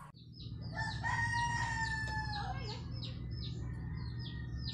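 A rooster crowing once, a long held call that drops off at the end. High short chirps repeat about three times a second alongside it, over a low steady hum.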